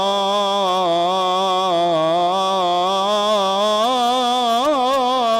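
A single man's voice singing an Islamic ibtihal (devotional hymn) without instruments. He holds one long melismatic note that bends slowly up and down, with a quicker run of ornamental turns about four seconds in.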